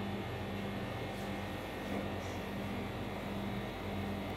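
Steady low hum with a faint hiss: refrigerated meat display cases running in a shop.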